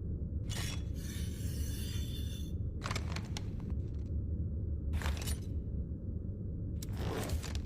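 Katana blade scraping and sliding against metal in about five short strokes, the longest lasting over a second with a faint metallic ring, over a steady low hum.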